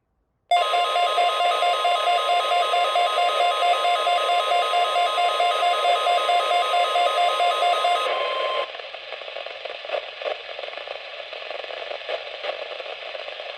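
NOAA Weather Radio warning alarm tone heard through a weather radio receiver, sounded as the weekly test: a loud, rapidly pulsing alarm over a steady tone for about eight seconds. It then cuts off to radio hiss and crackle.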